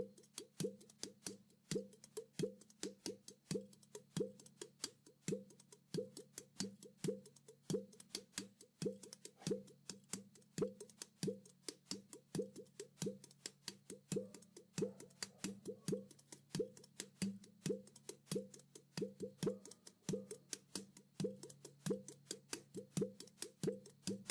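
Mini udu, a clay pot drum, played by hand in a steady rhythm of several strikes a second. Sharp slaps are mixed with deeper tones that ring from the pot's body.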